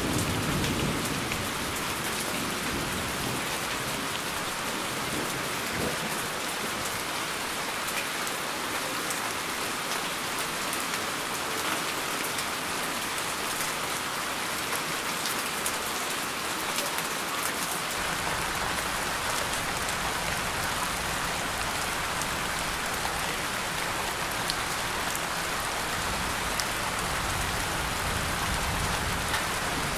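Steady rainfall, an even hiss of many drops that keeps the same level throughout.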